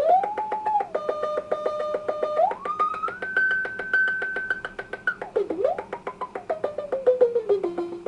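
Harsh synthesized tone from a DIY Eurorack audio-processor module: two oscillators through a balanced modulator into a resonant filter. A whistling pitch glides and steps up and down as the filter is swept, climbing high in the middle and sinking near the end, over a rapid clicking pulse.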